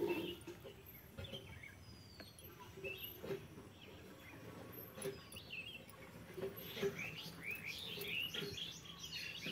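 Small birds chirping in short, quick calls with a few thin falling whistles, the calls growing busier in the last few seconds.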